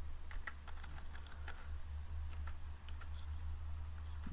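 Typing on a computer keyboard: irregular, scattered keystrokes as values are keyed in, over a steady low hum.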